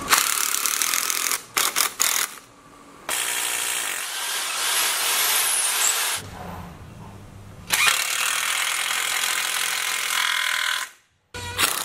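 Cordless power driver running in three runs of a few seconds each, with brief starts and stops between them, driving self-tapping screws into concrete and through timber into concrete.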